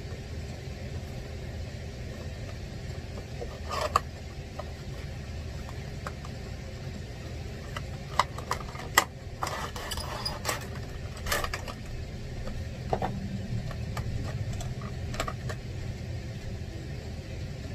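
Cardboard toy box and clear plastic packaging insert being handled: scattered clicks, scrapes and crinkles, the sharpest about four, eight to nine and eleven seconds in, over a steady low background hum.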